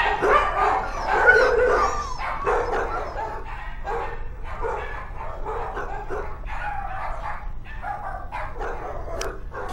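Dogs in shelter kennels barking and yipping in short, repeated calls, loudest about a second in.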